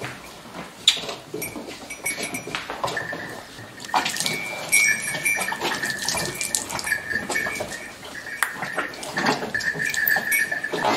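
Hand-milking a cow: squirts of milk splashing into a small steel pot in quick, irregular spurts, with a high, steady tone coming and going in the background from about four seconds in.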